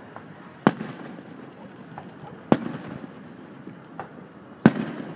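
Aerial firework shells bursting: three sharp booms about two seconds apart, with fainter pops in between.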